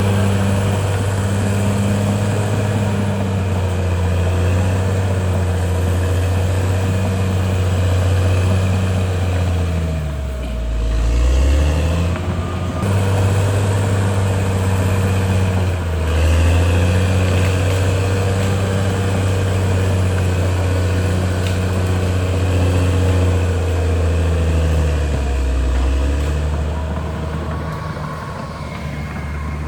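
CAT D6R XL bulldozer's diesel engine running steadily, its pitch sagging briefly and coming back up about ten seconds in, again around sixteen seconds and near the end.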